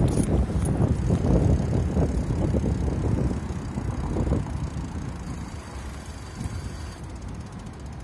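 Bicycle on the move: a low, uneven rumble of tyres and frame rattling over the pavement, mixed with wind on the microphone, growing quieter after about five seconds.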